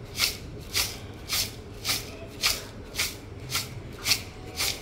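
Bhelpuri being tossed in a bowl: dry puffed rice with chopped onion, peanuts and namkeen rustling and sliding. There are nine even swishes, about two a second.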